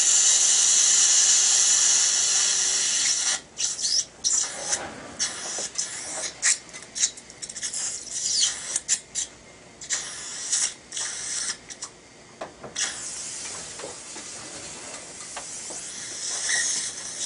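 Dental handpiece turning a tissue punch in the gum, a steady high hiss that stops about three seconds in. After that, surgical suction hisses in short irregular bursts, settling to a quieter steady hiss near the end.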